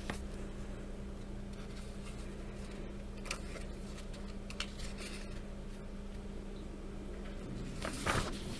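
A paper coloring-book page being turned, a brief rustle of paper about eight seconds in, after a few faint taps and rustles of a hand on the page. A steady low hum runs underneath.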